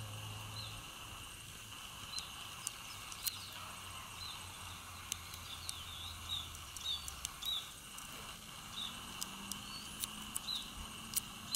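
Outdoor garden ambience: a steady high-pitched drone, with short high chirps repeating irregularly and scattered faint clicks over it.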